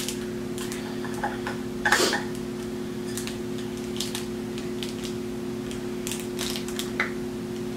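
Small clicks and taps of a cosmetic compact and makeup brush being handled and opened, with one sharper click about two seconds in, over a steady low hum.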